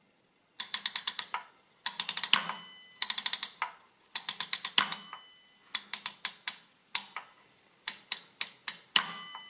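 The toothed metal number wheel of a 1924 Quixsum Fractional Adding Machine is turned by hand, clicking rapidly tooth by tooth in about seven short spurts, each lasting a second or less. A faint metallic ring follows some of the clicks.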